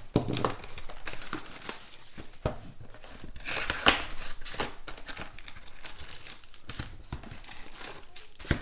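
Plastic shrink-wrap crinkling and tearing as a sealed trading-card box is unwrapped and opened, with a few sharp clicks as the box and foil packs are handled.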